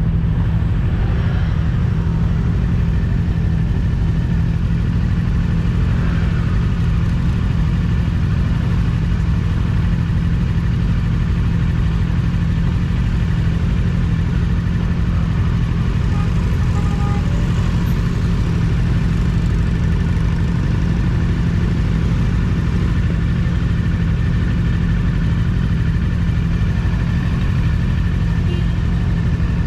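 Rusi Cyclone 400S motorcycle engine running steadily while the bike is ridden, with an even low rumble and no clear revving or gear changes.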